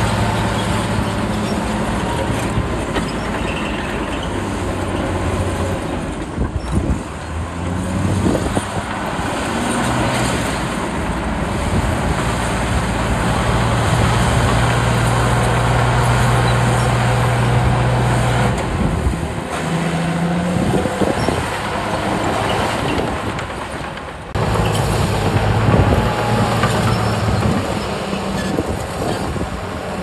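Heavy diesel engines of bulldozers and a dump truck running under load, the engine note shifting up and down several times as they work.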